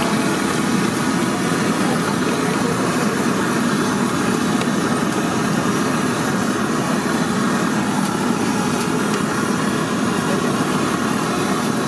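Medu vadas deep-frying in a kadai of hot oil, a steady sizzle, over a steady low engine-like rumble.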